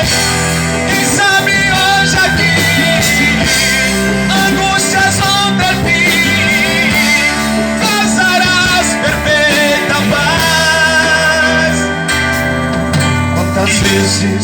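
Live band playing an instrumental break between sung verses: a wavering lead melody with vibrato over bass and drums with a steady beat.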